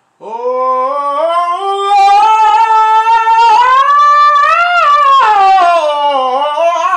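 A man singing unaccompanied, a long drawn-out gospel run on held vowels: his voice comes in just after the start, climbs in pitch and holds high notes with quick turns between them.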